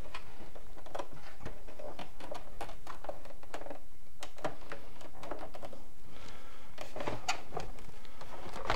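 Irregular light clicks, scrapes and knocks of a replacement 12 V sealed lead-acid battery being worked into the plastic housing of a CyberPower 1000AVR UPS, its connectors pushed onto the battery tabs, with a sharper knock near the end.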